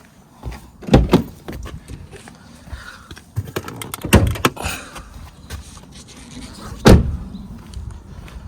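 Loud clunks and thuds from a BMW E90's body as its door and bonnet are opened: three main knocks, the first two doubled, about three seconds apart, with smaller clicks in between.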